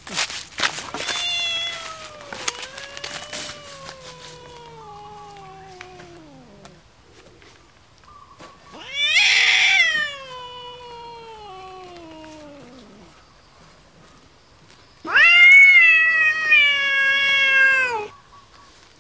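Kitten meowing: three long, drawn-out calls, each falling in pitch, the last the loudest. A few sharp knocks come at the start.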